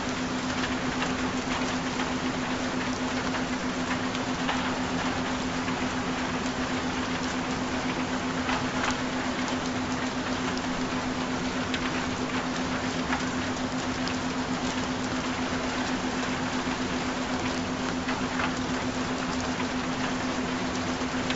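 Steady recorded rain falling, an even hiss with scattered faint drop ticks, with a steady low tone held underneath it.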